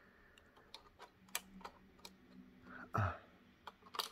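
Faint small clicks and taps of a plastic model railway sleeping car being turned over in the hands, with one louder thump about three seconds in.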